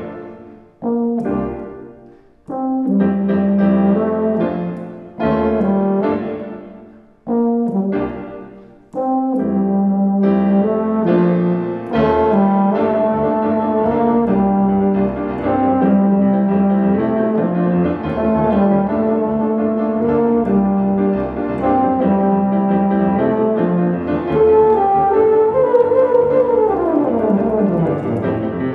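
Euphonium and piano playing a classical piece together in a concert hall. First comes a string of loud, separated chords that each ring and fade, then the music runs on without a break, with low held euphonium notes over the piano, and a long downward sweep near the end.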